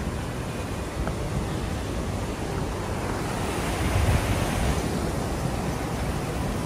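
Johnston Creek rushing through the canyon: a steady, even hiss of running water, swelling slightly about four seconds in.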